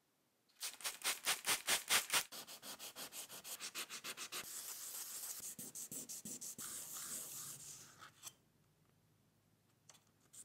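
Abrasive rubbing by hand in quick back-and-forth strokes, about seven a second and loudest in the first two seconds. Steadier strokes follow and stop about eight seconds in. The rubbing starts again at the very end.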